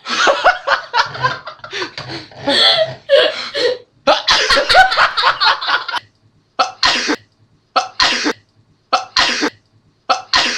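A person coughing hard, mixed with laughter, in a fit of rapid coughs that then thins out into about four single coughs roughly a second apart.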